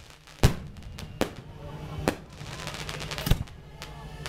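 Fireworks going off: about five sharp bangs, the loudest about half a second in, with crackling between them.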